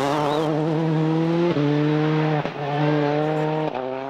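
A World Rally Car's turbocharged four-cylinder engine held at high revs, its loud, steady note broken briefly three times, then starting to fade near the end.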